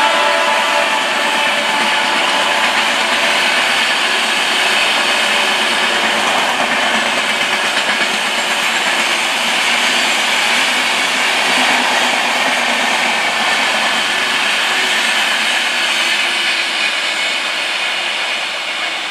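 Passenger train coaches rolling past on the rails: a steady, loud noise of wheels on track that fades over the last couple of seconds as the end of the train goes by. A pitched tone dies away in the first second.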